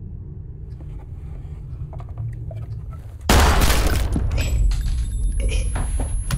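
A low steady drone, then a sudden loud handgun shot about three seconds in, followed by a loud sustained rumble with further sharp cracks and a high steady ringing tone.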